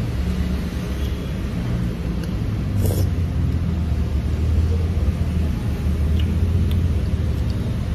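Steady low rumble of road vehicles idling and passing outside, with a short sharp click about three seconds in, like chopsticks touching a bowl.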